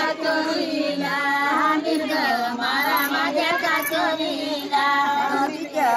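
A young child singing, the voice's pitch bending and holding through short phrases.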